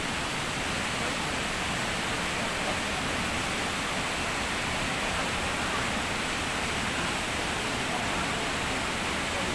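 Steady rush of falling water from a waterfall, an even, unbroken noise.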